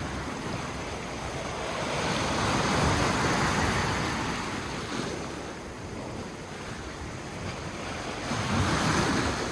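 Sea waves washing onto the shore, with wind buffeting the microphone; the surf swells about two seconds in and again near the end.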